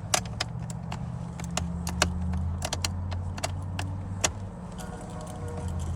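Keys on a keyring jangling, with sharp irregular clicks as the key is worked back and forth in an ignition lock that has locked up, over a steady low hum. The mechanic suspects a bad ignition switch.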